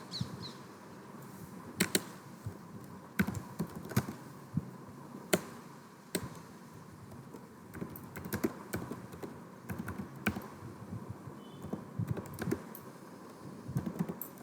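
Typing on a computer keyboard: a few separate sharp key clicks, then a denser run of keystrokes in the second half.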